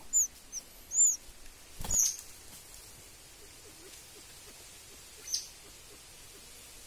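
A bird giving short, high-pitched squeaky chirps, each a quick rise and fall in pitch: three within the first second, a louder one with a sharp click about two seconds in, and a single chirp a little after five seconds.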